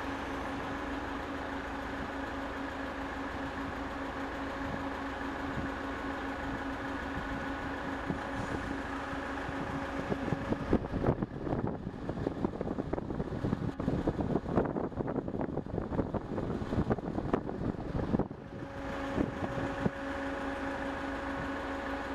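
Steady engine hum of heavy lifting machinery. From about halfway through, several seconds of irregular clattering and knocking take over, then the hum returns.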